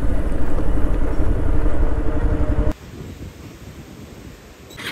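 Bajaj Pulsar 220F's single-cylinder engine running steadily at idle, now starting after its switch and starter relay were replaced. About three seconds in the sound drops abruptly to a faint background.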